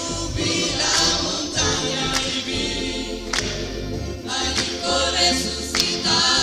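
A choir singing a gospel song over a band, with frequent drum and cymbal hits.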